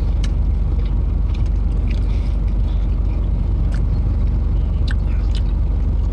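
Car running at idle, a steady low rumble heard from inside the cabin, with sandwich chewing and a few small, sharp mouth clicks over it.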